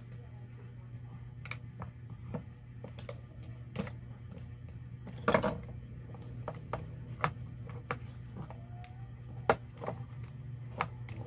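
Parts of a disassembled electric drill being handled on a wooden workbench: scattered clicks and knocks of the plastic housing and motor, with a louder clatter about five seconds in, over a steady low hum.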